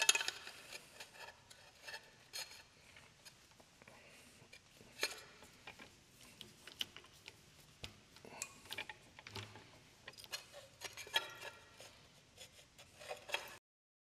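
Scattered light metal clicks and clinks as an aluminum workpiece is set in a milling machine vise and the mill's handles are worked, with more of them in the second half.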